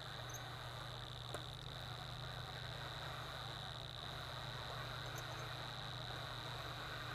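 Power drill running at low speed, turning a Uniburr Plus chamfer bit on the end of a 3/4-inch bolt: a faint, steady motor whine with the bit cutting the thread end.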